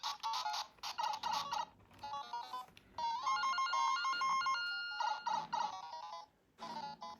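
Electronic beeping melody in quick notes, with longer held tones in the middle and a brief gap a little after six seconds.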